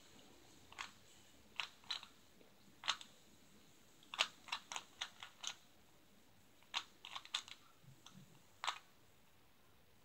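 A 3x3 Rubik's cube being turned by hand, its plastic layers clicking in short, irregular runs of sharp clacks with pauses between, including a quick run of about six turns near the middle.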